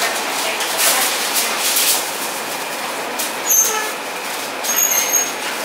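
Foil and plastic wrap crinkling as burritos are wrapped, in irregular crackly bursts over a steady background hiss.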